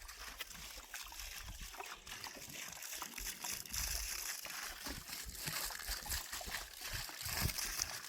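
Water trickling and splashing onto clods of topsoil, soaking them to make them muddy.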